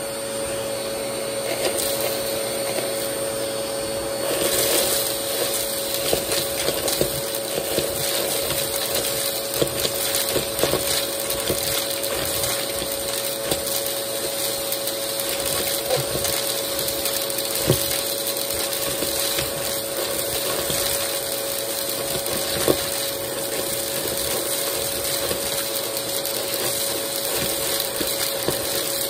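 Vacmaster vacuum running steadily while its hose sucks up small hard bits (coins, beads, sequins, washers), which rattle and click through the tube, with two louder clacks past the halfway point.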